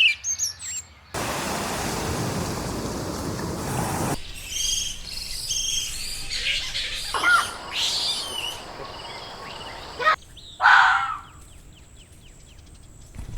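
Short high chirping animal calls, many in a row, after about three seconds of steady hiss; one louder call comes about ten seconds in.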